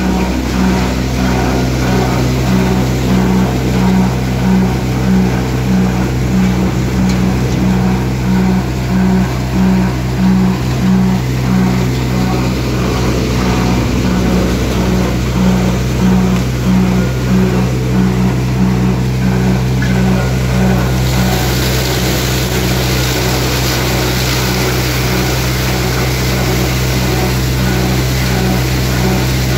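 Bucket-type multi-grain thresher running, with the steady drone of its driving engine and a throb about twice a second. About two-thirds of the way through, a hissing rush joins in.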